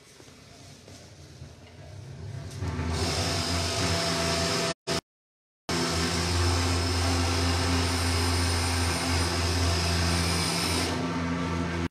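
Portable fogging machine used for disinfectant spraying, running with a steady low buzz and a hiss above it. The sound grows louder over the first few seconds and drops out completely for under a second about five seconds in.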